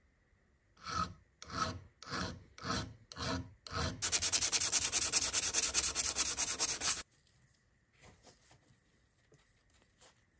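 Abrasive paper rubbed by hand over a curved sheet-metal part of an old oil pump. It starts with six separate slow strokes, then rubs quickly back and forth for about three seconds and stops abruptly.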